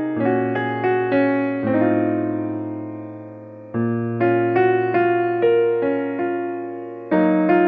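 Background music on a piano with an electric-piano tone, playing a gentle tune of notes struck one after another. A held chord fades out slowly near the middle before new notes come in.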